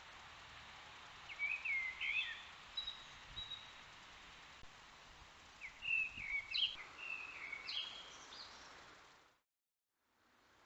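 A songbird singing two short runs of quick, gliding, chirping phrases, the first about a second in and the second around six seconds in, over the steady hiss of a trail camera's microphone. Near the end the sound cuts out, and a fainter hiss follows.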